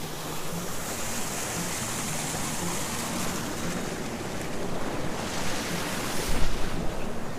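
Creek water rushing over a small waterfall, a steady loud hiss of flowing water. A brief low buffet about six seconds in, like wind on the microphone.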